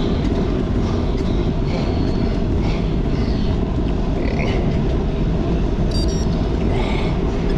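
Wind buffeting the microphone of a camera on a moving bicycle at about 17 mph: a steady, loud low rush mixed with road noise.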